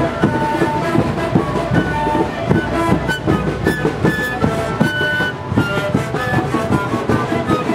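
A sikuri ensemble playing: many sikus (Andean panpipes) blown together in a breathy melody over large bass drums beating steadily underneath.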